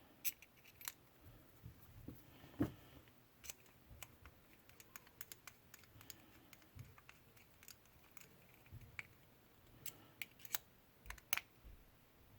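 Small irregular clicks and taps of plastic and metal parts of a Zebco Bullet spincast reel being handled and fitted together during reassembly.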